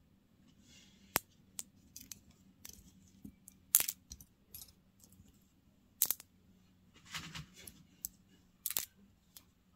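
Loose faux-pearl and glass beads clicking and clinking against each other in a palm as more are picked up one by one. The clicks are sharp and irregular, about ten of them, with the loudest a little under four seconds in.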